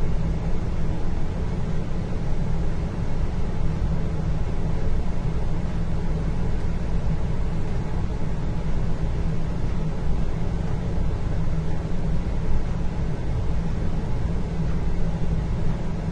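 Indoor ambience dominated by a steady low rumble, with a fainter hiss above it and no distinct events.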